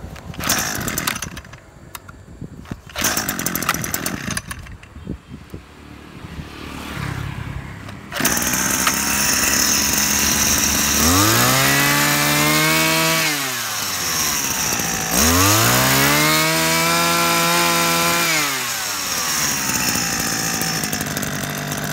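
Makita 26cc two-stroke brush cutter engine being pull-started with a few short bursts, catching about eight seconds in and idling. It is then revved up to high speed and held twice, dropping back to idle after each. The idle is set a little low, and the engine runs very smoothly.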